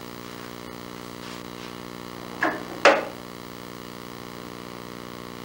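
Two short, sharp knocks close together from the small wooden drawers of a wall cabinet, rattled as a parakeet tugs at them with its beak, over a steady electrical hum.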